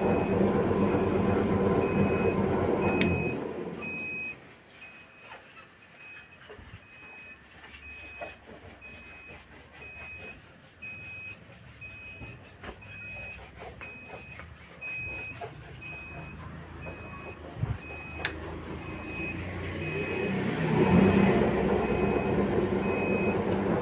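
Home-built cassava chip slicer driven by an electric motor and belt-driven flywheel, running loudly, then dying away about four seconds in and building back up near the end. A short, high beep repeats at an even pace throughout.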